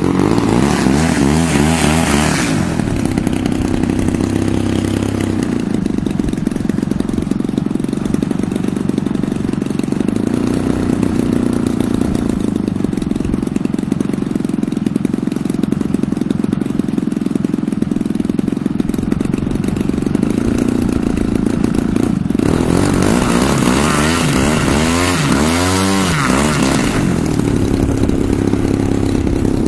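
DLE 111cc twin-cylinder two-stroke petrol engine of a 35% scale Sbach 342 model plane running on the ground, its propeller turning. It idles steadily, is opened up briefly near the start, and again for several seconds about two-thirds of the way through, the pitch rising and falling with the throttle.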